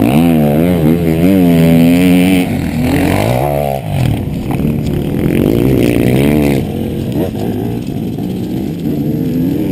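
Enduro dirt bike's engine revving hard, its pitch repeatedly rising and falling with throttle and gear changes as it races along the special test. It cuts off sharply just before four seconds, picks up again, and drops to a quieter level after about six and a half seconds.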